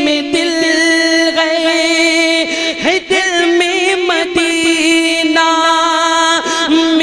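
A singer performing an Urdu naat (Islamic devotional song), drawing out long held notes with wavering melismatic ornaments and no clear words.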